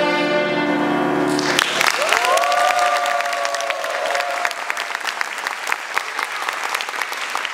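A student violin ensemble holds its final chord, which cuts off about a second and a half in. Audience applause follows, with a few voices cheering near the start of it.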